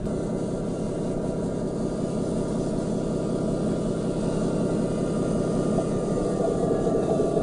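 JDModel JDM-158 Mercedes Zetros 6x6 RC truck running as it crawls over dry pine needles. It makes a steady mechanical drone that grows louder near the end as the truck comes closer.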